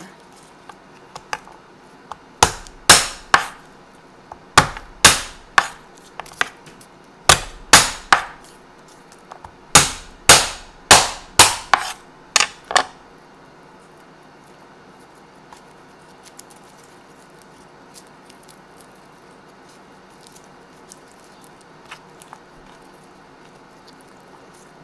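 A chef's knife crushing garlic cloves against a wooden cutting board: sharp, loud knocks come in quick groups of three or four, about nineteen in all over ten seconds. After that come only faint small clicks as the crushed cloves are peeled by hand.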